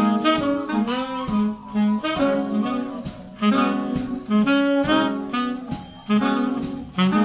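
Jazz ensemble playing a swinging blues: several alto and tenor saxophones play a melody line together over a drum kit keeping a steady beat.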